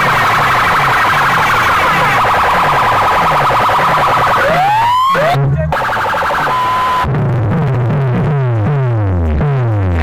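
Very loud electronic competition DJ track blasting from a sound-box speaker system. Siren- and alarm-like synthesized tones play over a falling bass sweep that repeats about twice a second. A short rising glide and a brief drop-out come about halfway through.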